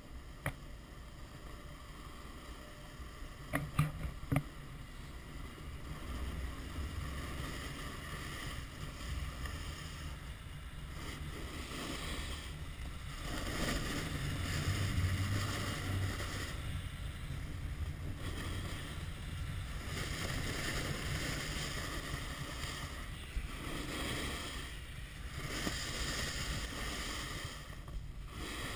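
Snowboard sliding and carving over packed snow: a steady scraping hiss that swells and fades with each turn, mixed with wind rushing over the microphone. A few sharp knocks about four seconds in.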